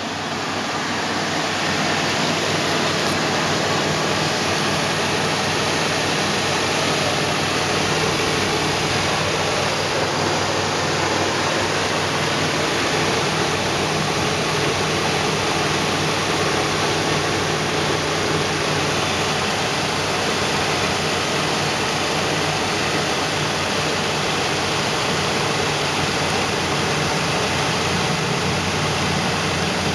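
Replacement engine of a 1990 Chevy Astro van running steadily and evenly, with a steady hiss over its low drone.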